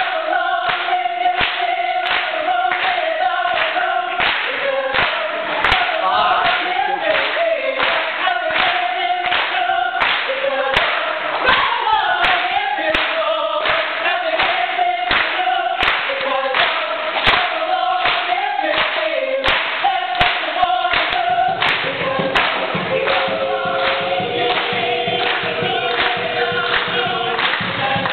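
Mixed choir singing a pop and gospel arrangement over a steady beat of sharp percussive hits.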